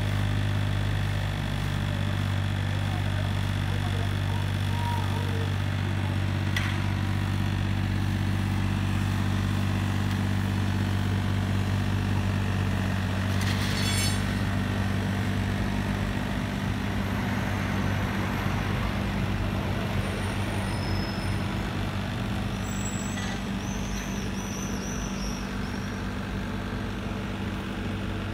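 Diesel engine of a Kubota mini excavator running steadily at idle, a low even hum, with two brief sharp clanks about six and fourteen seconds in.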